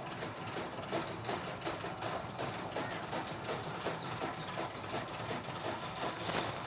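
Several rabbits munching fresh leafy greens close up: a rapid, continuous patter of crunching and nibbling.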